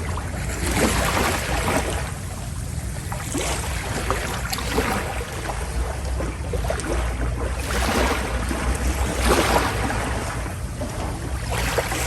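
Passenger ferry under way at sea: a steady low rumble from the ship, with water rushing and splashing along the hull in washes that swell about every second and a half.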